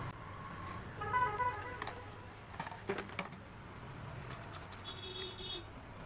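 A few light clicks and taps of a hacksaw blade against a PVC pipe as it is set in place. A quick run of short, high pitched pips about a second in is louder than the taps, and another pip comes near the end.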